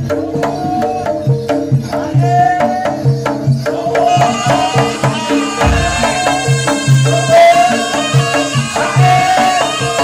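Live Javanese jaranan ensemble music: hand-drum strokes in a steady rhythm under sustained gong-like tones and a gliding melody line, the texture filling out about four seconds in.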